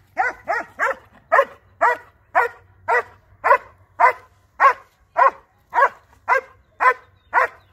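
Large black shepherd-type dog barking steadily at a decoy hidden in a wooden blind, the bark-and-hold of protection training: about fifteen loud, evenly spaced barks, a little under two a second.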